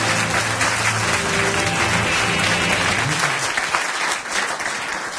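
Studio audience applauding over background music. The music stops about three seconds in and the applause thins out near the end.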